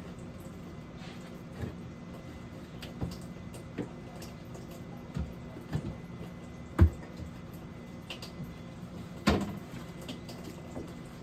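Scattered knocks and clunks of containers and items being handled in a refrigerator, with two louder knocks in the second half.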